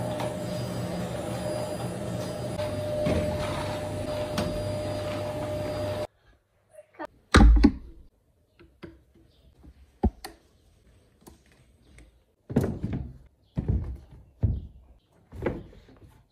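A bagless canister vacuum cleaner running steadily with a whine, cut off abruptly about six seconds in. Then a string of knocks and thuds from wardrobe tidying: plastic hangers clacking on a metal clothes rail and shoes set down on a wooden shelf, the loudest thud about halfway through.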